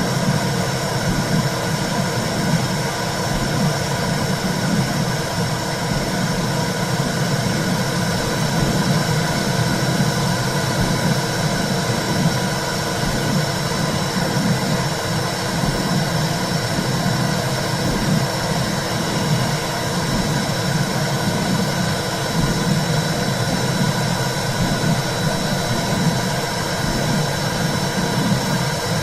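Womb sound for soothing a baby: a steady, low whooshing rumble like blood flow heard inside the uterus. A thin, steady high tone runs over it.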